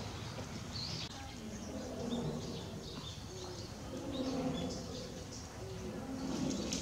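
Small birds chirping, short high calls scattered every second or so, over steady outdoor background noise.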